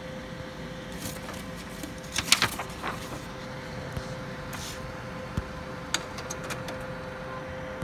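HP LaserJet CP1025nw colour laser printer running with a steady hum, which stops near the end, under scattered clicks and rustling from the printed report pages being handled.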